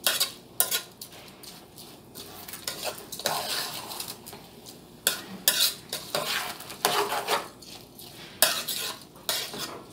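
Metal spoon stirring and scraping rice, sausage and vegetables in a pot on the stove, clinking against the pot in irregular strokes. The rice is being turned in the pot before the water goes in.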